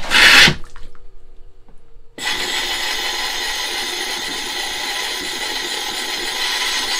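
Compressed air and leftover water hissing out through a Thetford RV toilet's flush valve as it is held open, blowing the water line out for winterizing. A brief burst comes right at the start, then a steady hiss starts suddenly about two seconds in.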